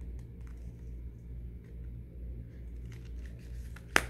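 Faint handling noise and small plastic clicks as hands pry at a snap-on case on a Motorola flip phone, with one sharp click near the end, over a steady low hum.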